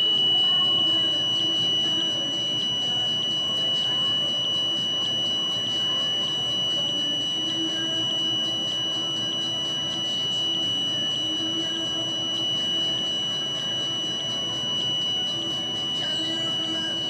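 Electronic detector sounding one steady high-pitched tone, with a brighter tick about twice a second, over a low background hum. It is the kind of audio output given by a handheld RF or microwave meter, which the owner takes as showing microwaves aimed at him.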